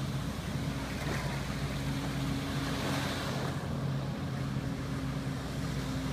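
Personal watercraft engine running with a steady hum as it pumps water to a rider's jet-propelled water flight rig skimming across the bay. Wind and lapping surf can be heard along with it.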